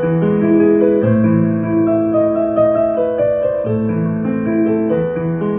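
Slow, gentle piano music.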